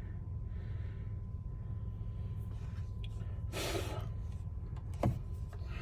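Steady low hum in a quiet vehicle cabin with a faint steady high tone, a breathy exhale about three and a half seconds in, and a single click about a second later.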